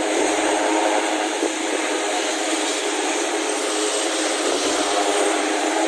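Large twin-turbine military helicopter running on the ground with its main rotor turning: a steady turbine and rotor noise.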